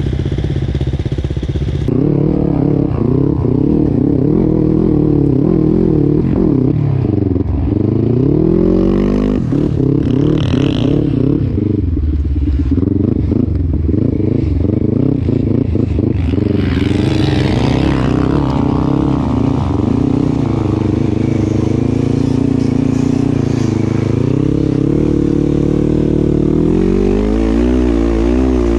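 Dirt motorcycle engine running hard under load on sand, its revs rising and falling again and again; about two seconds in it becomes louder, and around seven to nine seconds in the revs drop low and climb back up.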